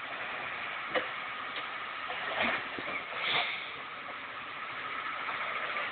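Unimog truck running as it crawls over a pile of logs, with a few short knocks.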